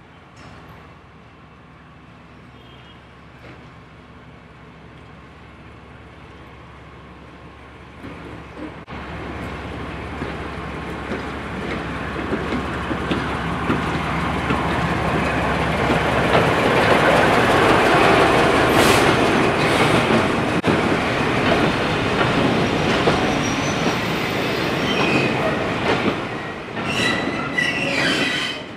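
British Railways Class 03 diesel shunter with its Gardner eight-cylinder engine running as it hauls a rake of coaches past, growing louder from about eight seconds in and loudest as the locomotive goes by. The coaches then roll past with wheel rumble and clacks over the rail joints, and a brief high wheel squeal near the end.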